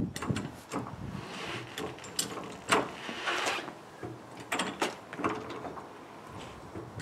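Hydraulic trolley jack being worked to raise a car: scattered metallic clicks and clunks from the handle and lifting arm, with a sharp knock just under three seconds in and a few short scraping rushes.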